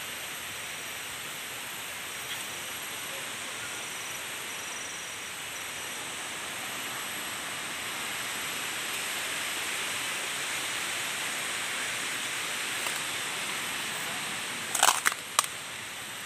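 Footsteps through dry leaf litter on a forest floor over a steady hiss of forest background noise. Near the end come a quick cluster of sharp cracks: dry twigs snapping underfoot.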